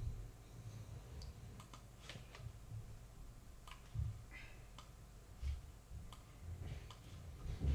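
Faint, irregular clicks from a computer being operated, with a few dull low thumps.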